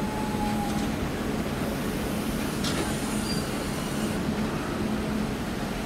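Covered freight wagons rolling past on the rails, a steady rumble of wheels and running gear, with a short squeak at the start and another brief high squeak about halfway through.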